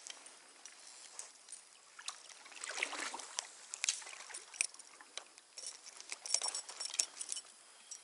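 Stream water splashing and sloshing with many irregular sharp clicks and taps while a hooked trout is fought at close range; the splashing and clicking pick up about two to three seconds in and again near the end.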